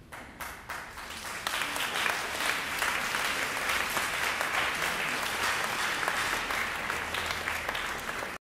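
Audience applauding: a few scattered claps swell into full, steady applause within about a second and a half, then cut off abruptly near the end.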